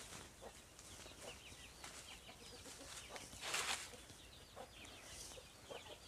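Free-range country chickens clucking and chirping faintly as they forage, many short calls scattered throughout, with a brief rustling noise about halfway through.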